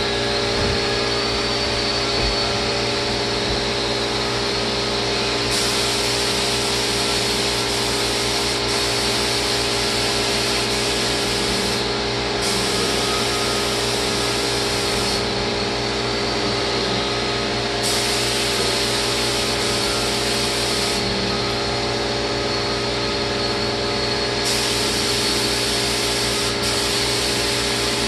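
Spray gun hissing in bursts of a few seconds, about five times, as lacquer is sprayed onto cabinets, over the steady hum of the spray equipment running throughout.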